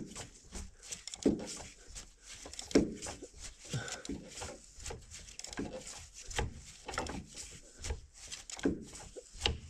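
Irregular clicks and clanks of a ratchet and hand tools on a Caterpillar 3406B diesel block, with a few dull knocks, as the hard-turning crankshaft is worked around with a turning tool.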